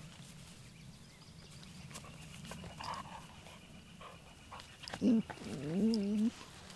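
Two dogs play-wrestling: a puppy and an older dog growling low and steadily, with light scuffling. About five seconds in comes a short loud yelp, then a wavering whine-growl about a second long.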